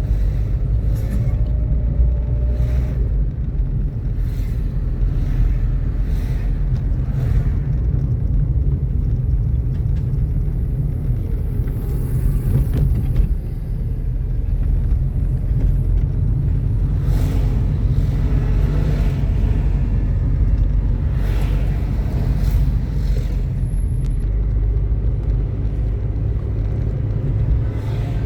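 A car driving along a road, making a steady low rumble of engine and road noise, with short swishes coming and going over it.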